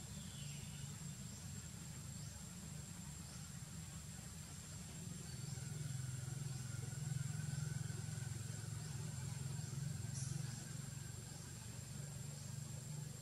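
Outdoor ambience: a steady low rumble, louder from about five to ten seconds in, with a thin high steady whine and faint ticks about every half second above it.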